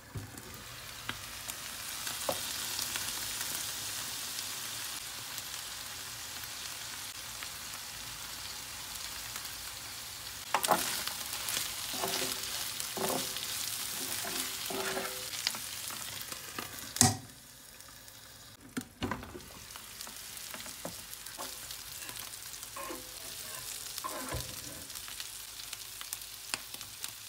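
Thin beef slices sizzling as they fry in suet in a coated double-sided pan, their juices already cooked off so the meat is browning. A wooden spatula and then metal tongs scrape and click against the pan as the meat is turned. There is one loud knock about two-thirds of the way through.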